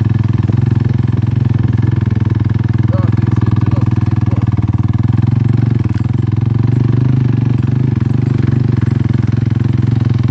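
Motorcycle engine running steadily under way, a loud, even drone with a fast regular beat that holds the same pitch throughout.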